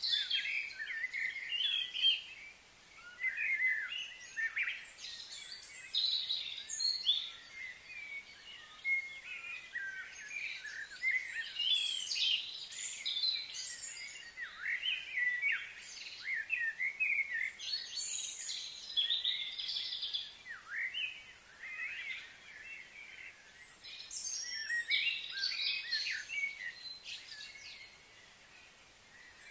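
Birds chirping and calling in bunches of quick, gliding notes with short pauses between, over a faint steady hiss.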